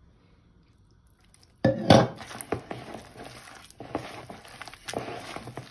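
A hand mixing and squeezing chicken pieces with gram flour in a plastic bowl, the bowl knocking and scraping on the counter. It is quiet at first, then a sudden loud knock comes just before two seconds in, followed by many short knocks and clicks.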